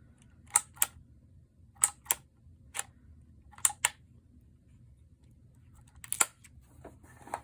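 Phomemo E975 handheld embossing label maker pressing letters into label tape: sharp clicks, mostly in pairs, about five presses a second or so apart, with a pause in the middle, then a few faint ticks near the end.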